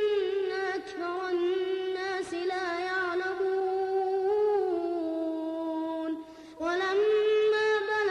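A boy reciting the Quran in melodic tajweed, drawing out long ornamented notes, with a short pause for breath about six seconds in.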